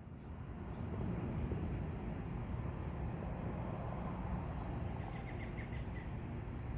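Steady low outdoor rumble with no firework bursts. About five seconds in comes a short run of faint high chirps.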